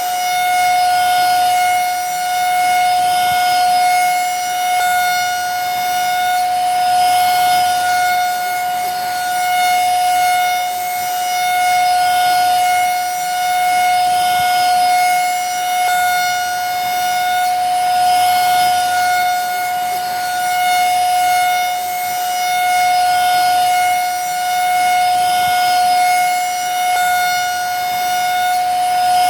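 Vacuum cleaner running steadily: a constant high motor whine over a rushing airflow hiss, swelling slightly about every two seconds.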